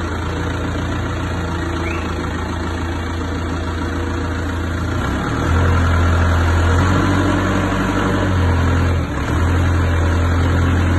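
Forklift engine running, idling and then revving up about halfway through as the forklift moves its load, with a brief drop before it picks up again near the end.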